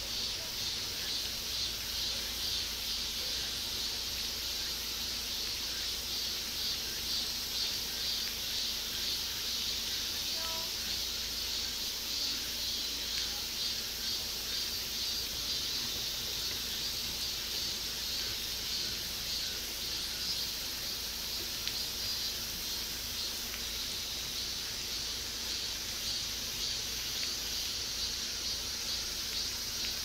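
Steady outdoor chorus of summer insects chirring: a dense, high-pitched, fast-pulsing trill that runs without a break.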